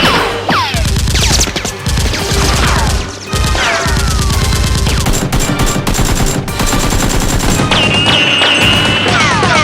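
Sound-effect automatic gunfire, rapid continuous shots, with repeated falling whistling sweeps, over background music.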